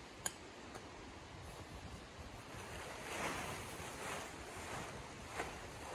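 Large sheet of tent fabric rustling and swishing as it is shaken out and lifted, loudest about halfway through. A sharp click sounds just after the start and another near the end.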